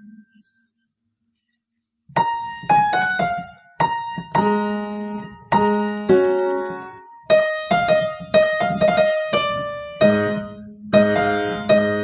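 Upright piano playing a waltz in D-flat major. The first two seconds are silent, then the playing resumes: a low bass note under each bar with chords and melody notes above.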